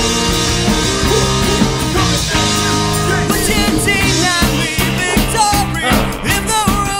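Punk rock band's recorded song playing loudly, with a voice singing from about three seconds in.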